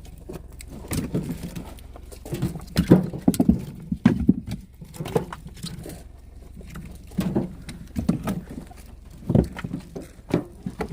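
Short pieces of split oak firewood clunking against each other as they are handled and stacked, an irregular run of wooden knocks.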